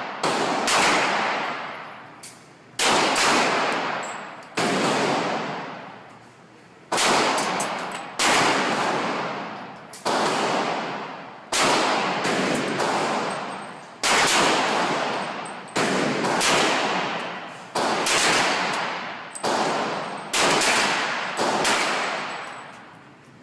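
Glock 35 pistol in .40 S&W firing single shots at a slow, steady pace, about a dozen shots one to two seconds apart. Each crack is loud and sharp and trails off in a long echoing decay.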